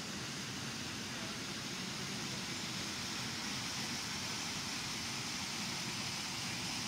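Steady rushing hiss of water flowing at a stone dam, even and unbroken throughout.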